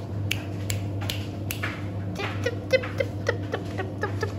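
Three sharp clicks, then a quick run of short, high squeaks, typical of a kitten mewing, over a steady low hum.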